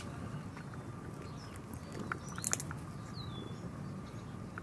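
Outdoor garden ambience: small birds chirping in short, falling calls, mostly in the second half, over a steady low background rumble, with a couple of sharp clicks about halfway through.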